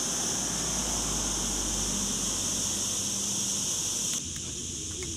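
A chorus of cicadas buzzing as one steady high-pitched hiss, with a faint low rumble underneath. It drops off abruptly about four seconds in.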